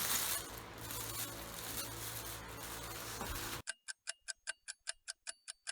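Clock-like ticking sound effect, about six even ticks a second over dead silence, starting about three and a half seconds in. Before it, a low background hiss with a steady hum.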